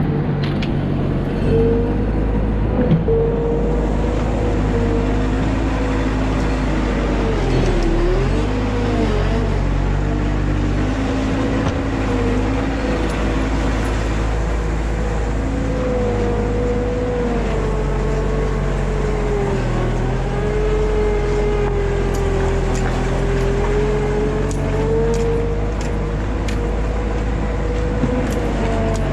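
Truck cab while driving: steady engine and road rumble with a drone that slowly rises and dips in pitch as the speed changes.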